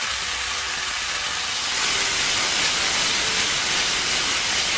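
Onions and capsicum sizzling in hot oil in a pan with freshly added tomato ketchup and chili sauce, a steady hiss that grows louder about two seconds in as the mixture is stirred with a wooden spatula.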